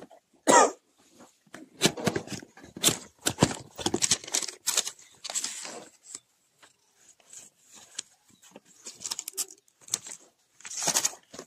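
Cardboard box and plastic packaging being handled and opened: irregular rustling, crinkling and scraping in short bursts, the loudest about half a second in.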